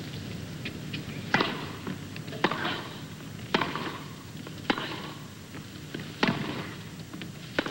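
Tennis rally: a serve, then the ball struck back and forth by rackets, six sharp hits about a second apart with fainter ticks between them.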